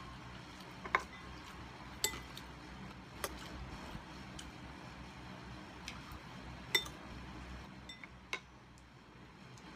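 Metal spoon clinking against a glass bowl while scooping soup: several sharp, short clinks with a brief ring, the loudest about one, two and seven seconds in.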